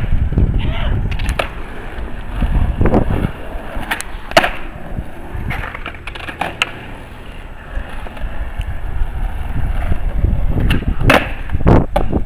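Skateboard wheels rolling over asphalt with a steady rumble, broken by several sharp clacks of the board hitting the road, the loudest about four seconds in and a quick run of them near the end.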